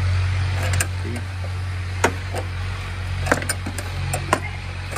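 Scattered sharp metal clicks and taps of a spanner working loose the steering stem check nut of a motorcycle, over a steady low hum.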